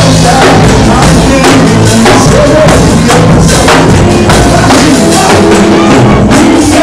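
Live gospel worship music played very loud: a band with a drum kit keeping a steady beat and a tambourine, over a melody.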